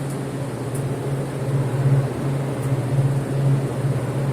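Refrigeration evaporator coil unit running steadily, its fans giving a low hum that swells and fades slightly over a whooshing of air. The unit is working normally after its Beacon II control board was replaced.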